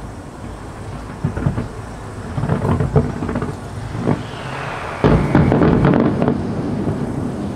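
Fireworks display: a rapid run of booms and crackling as low-level comets fire and aerial shells burst, several clusters of bursts, loudest from about five seconds in. A faint falling whistle comes just before the loudest cluster.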